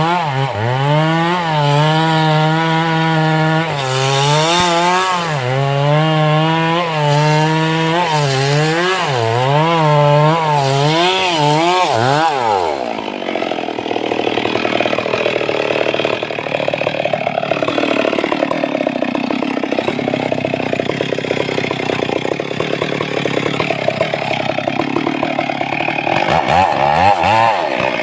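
Stihl MS 382 two-stroke chainsaw running at high revs, its pitch wavering up and down as it cuts wood. About twelve seconds in the revs drop sharply, and the saw runs on at a lower, unsteady speed.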